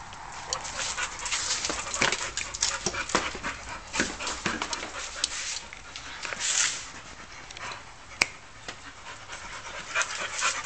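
Dogs, a young American Staffordshire terrier and a pit bull puppy, panting hard from play in quick, breathy strokes, with a single sharp click about eight seconds in.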